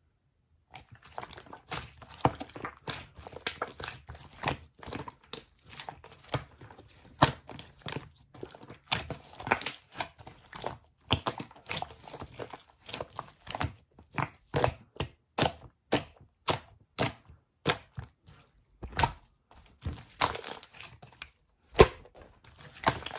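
Slime being pressed and squeezed by hand, giving a quick irregular run of sharp crackling pops and clicks, about two or three a second, starting just under a second in.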